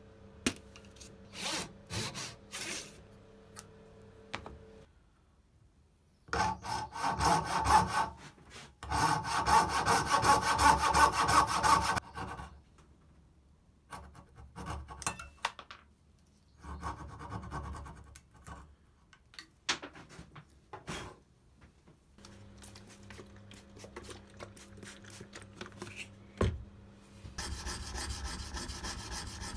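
Hand saw cutting oak dovetails: after a few light starting strokes, a back saw guided against a magnetic saw guide saws in two loud runs of quick, even strokes. Lighter, broken runs of coping-saw strokes follow, and near the end a blade is rubbed back and forth on a sharpening plate in a steady rasping rhythm.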